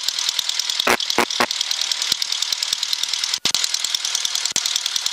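A Cessna's piston engine idling on the ground, heard inside the cockpit as a fast, even pulsing. A few clicks come about a second in, and the sound drops out briefly about three and a half seconds in.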